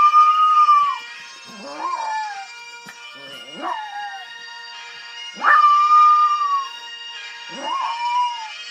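Morkie puppy howling along to bagpipe music: five howls, each sweeping up sharply and then held or sliding down, the longest about a second, over the pipes' steady drone.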